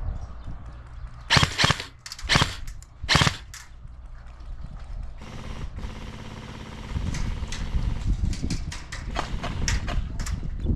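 Airsoft guns firing: five sharp single shots in the first few seconds, then a longer stretch of quicker shots over a steady whine.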